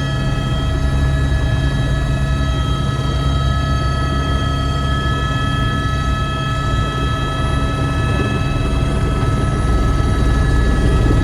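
Helicopter running steadily: a high turbine whine with several steady tones over a loud, low rotor drone.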